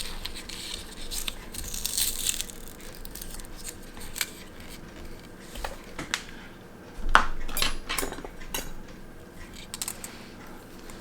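Small metallic clicks and taps of watch-repair tools handling the parts of a quartz watch movement during replacement of its electronic module, with a brief louder rustling scrape about seven seconds in.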